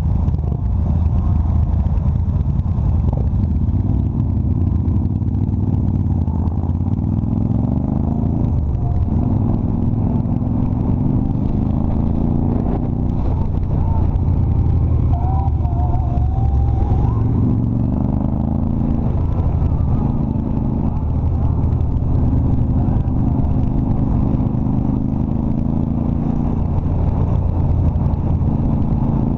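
Cruiser motorcycle engine running under way at road speed, its note rising several times as the rider accelerates and dropping back between shifts.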